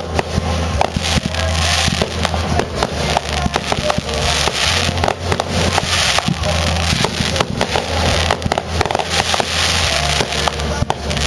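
Fireworks going off in quick succession, dense bangs and crackling, with music playing underneath.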